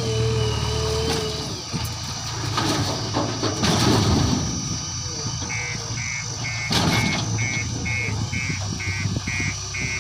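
Heavy diesel engine of earthmoving machinery running steadily, with two louder noisy surges. About halfway through a reversing alarm starts beeping, roughly two and a half beeps a second.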